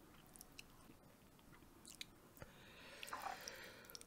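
Faint eating sounds from a person eating jjamppong noodles: quiet chewing with a few soft clicks, then a soft breathy noise building near the end as a mouthful of noodles reaches the mouth.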